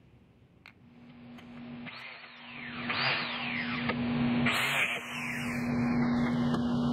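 Biscuit joiner running and cutting slots into the pine frame's rails for tabletop fastener clips, a steady motor hum that builds up over the first few seconds with a few rising-and-falling cutting sweeps.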